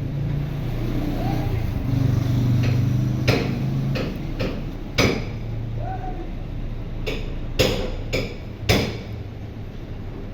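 A string of sharp metallic knocks and clanks, about eight at uneven intervals, over a steady low drone that fades after about four seconds.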